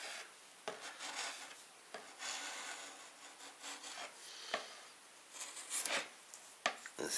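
Wood chisel scraping and shaving excess edge banding off the edge of a melamine board: a series of light scraping strokes with a few sharp clicks between them.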